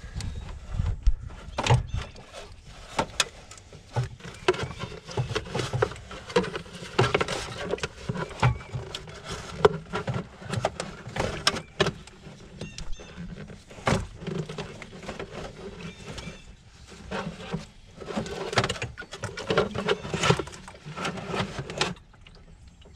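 Irregular plastic knocks, clicks and rattles from handling the plastic coolant reservoir and a plastic bucket held under it while draining the coolant.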